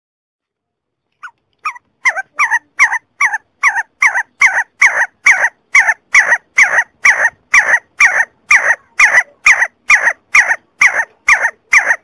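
See-see partridge calling: a long, rapid series of short, loud notes, each falling in pitch, about two and a half a second. A few quieter notes lead in after about a second of silence.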